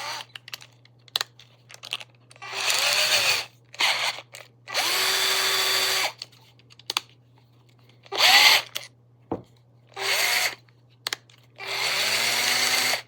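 DEKOPRO 12 V cordless drill run in five short trigger bursts, the motor spinning up and winding down each time, with small handling clicks between the runs.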